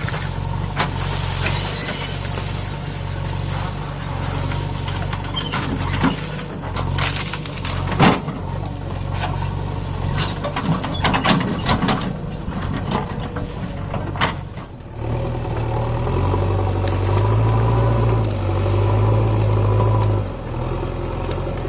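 JCB backhoe loader's diesel engine running steadily, with a series of sharp knocks and clanks in the middle. In the second half the engine pulls harder and louder for several seconds, then eases off.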